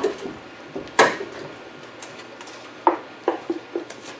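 Metal tools and parts clanking as they are handled: one sharp clank about a second in, then a quick run of lighter clinks near the end.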